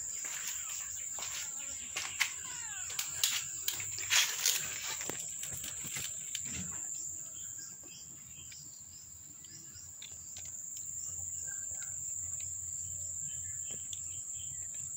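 Insects chirping in a steady high-pitched drone, with a run of sharp clicks and short chirps over the first six seconds or so.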